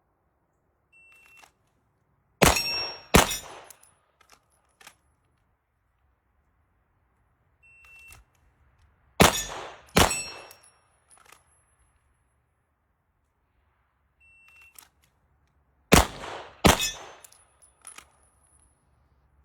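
Gunshots in pairs, three-quarters of a second apart, three pairs in all, each shot leaving a metallic ringing like steel targets being hit.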